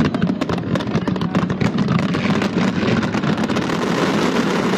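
Dense fireworks barrage: a rapid run of bangs and crackles over a continuous low rumble, the separate bangs giving way to a thicker, more even rumble about halfway through.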